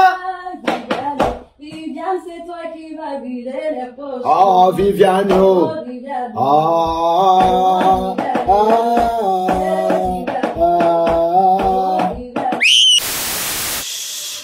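A voice singing a melody over music. A steady beat joins about four seconds in. Near the end there is a quick rising whistle-like glide, then a short burst of hissing noise.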